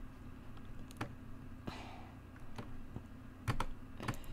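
A handful of separate, quiet clicks from a computer keyboard and mouse, irregularly spaced, with a pair close together near the end, over a faint steady low hum.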